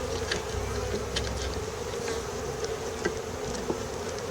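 Honeybees buzzing steadily around an opened hive: a dense, even hum, with a few faint clicks.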